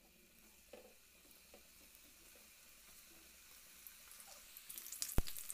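Potato rolls frying in hot oil in a wok: a faint hiss that grows into a louder sizzle near the end as the rolls are dropped in by hand, with a sharp click shortly before the end.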